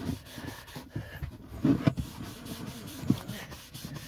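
A cloth rag rubbing over the oiled wooden side of a box in quick, irregular strokes, with a few light knocks as the box is handled.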